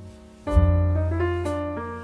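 Background music: piano-like keyboard notes over a deep bass note that sounds about half a second in, followed by a quick run of changing notes.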